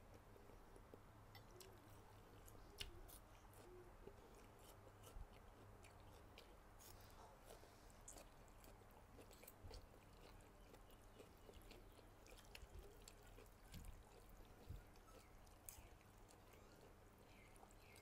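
Faint eating sounds: small clicks of a metal fork and spoon against a ceramic bowl as noodles are lifted from the soup, with soft chewing, over a low steady hum.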